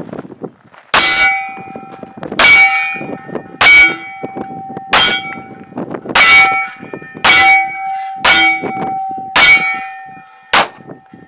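Colt 1911 .45 pistol fired one-handed, nine shots roughly a second and a quarter apart. Each shot is followed by the ringing clang of a steel plate target being hit.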